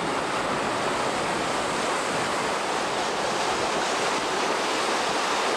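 Steady rush of seawater breaking along the hull of a schooner under way.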